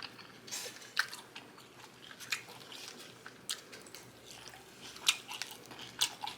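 Close-miked mouth sounds of someone chewing a bite of a lettuce-wrapped double cheeseburger, a string of short separate clicks and smacks.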